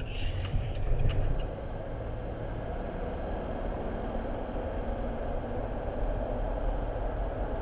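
A car's engine running steadily with a low rumble, with a few sharp clicks and knocks in the first second and a half.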